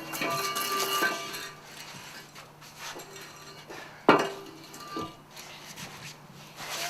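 Metal clinks and knocks from handling a motorcycle and its parts, with one sharp knock about four seconds in and short metallic ringing.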